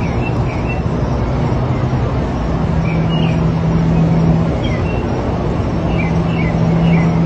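Steady outdoor rumble and noise with a low hum that fades out and back in, and faint short high chirps now and then.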